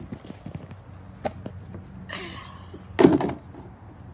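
A light knock, then a short squeak, then a heavy thump about three seconds in: hard objects being handled and set down.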